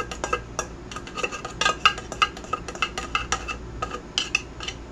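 Metal spoon stirring dry cat kibble in a plastic bowl: a run of quick, irregular clicks and rattles as the pellets knock against the spoon and the bowl.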